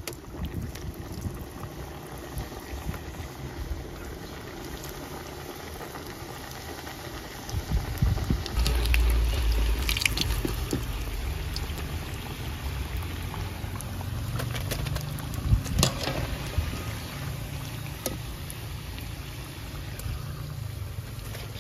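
Samosas deep-frying in hot oil in an aluminium pot, the oil sizzling and bubbling steadily. A low rumble comes in about eight seconds in, and there are a few sharp clicks, some around ten seconds and a pair near sixteen seconds.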